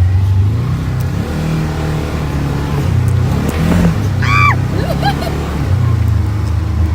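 Polaris RZR side-by-side's engine running as it drives, its pitch rising and falling with the throttle. A short high squeal rises and falls about four seconds in.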